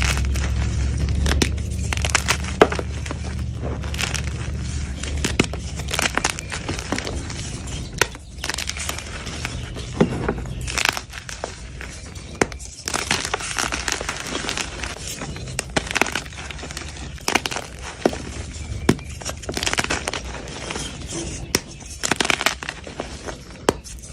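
Blocks of gym chalk being crushed and crumbled: a dense run of dry crunches and crackles with powdery crumbling between them. A low hum sits under the first few seconds.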